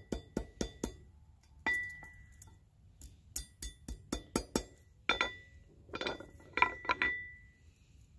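Hand hammer striking a copper cloak pin, each blow giving a sharp metallic clink with a short ring, in irregular runs of quick blows separated by pauses.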